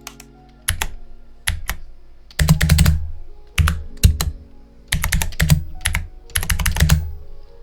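Mechanical-keyboard keystroke clicks from the Mechakeys typing-sound software, coming in quick flurries of several keys with short pauses between them: first single strokes, then bursts of rapid typing.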